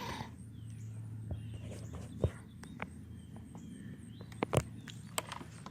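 Wild birds chirping in short calls, broken by several sharp clicks or taps, the loudest a little over two seconds in and two close together about four and a half seconds in.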